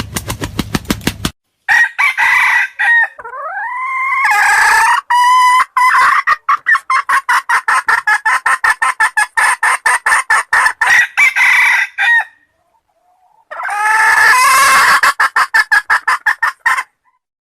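Red junglefowl (wild chickens) calling: long runs of rapid clucks at about five a second, broken by crowing calls, one of them gliding up in pitch about three seconds in. There is a short pause about two-thirds of the way through.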